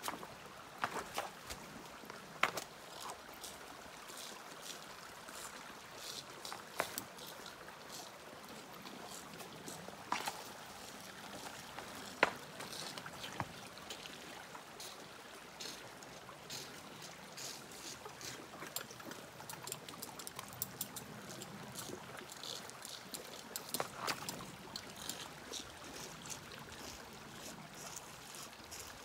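A creek running steadily, with scattered sharp clicks or knocks at irregular intervals.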